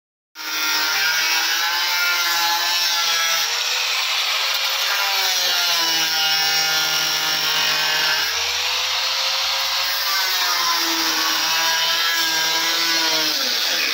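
Angle grinder cutting into the steel body of a crash-damaged car at the front pillar, throwing sparks. It starts abruptly about half a second in and gives a steady whine whose pitch sags several times as the disc is pressed into the metal, then recovers. It stops right at the end.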